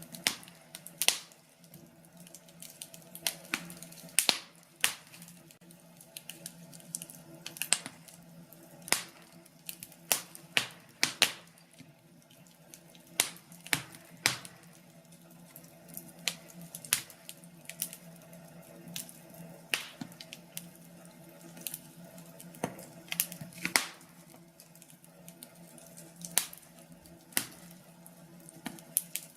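Wood fire crackling in a fireplace: irregular sharp pops and snaps, one or two a second, over a steady low hum.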